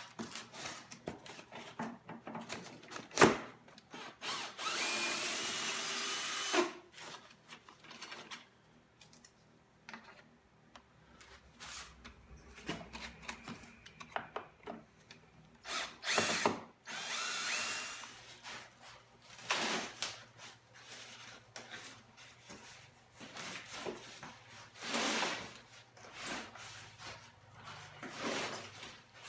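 Power drill backing out the screws that hold a pedestal stand, running in several short bursts of a second or two. Knocks and handling clatter fall between the bursts, the loudest a single sharp knock about three seconds in.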